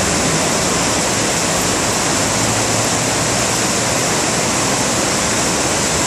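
Muddy floodwater from typhoon rain rushing down a stepped concrete river channel in whitewater, a steady loud rush of water.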